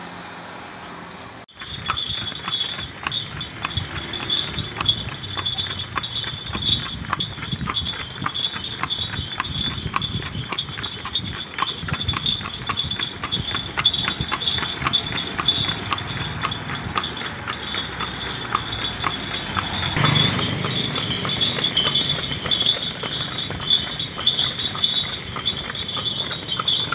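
Hooves of a horse pulling a bendi horse cart clip-clopping steadily on an asphalt road, starting about a second and a half in, over a steady high-pitched buzz. About twenty seconds in, a louder low rumble joins.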